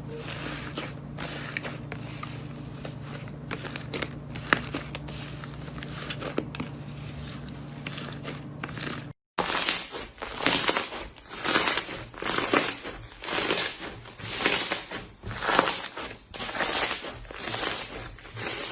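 Slime being handled and squeezed by hand: small clicks and crackles at first, then, after a break about halfway, louder repeated squishing and crinkling sounds about once or twice a second.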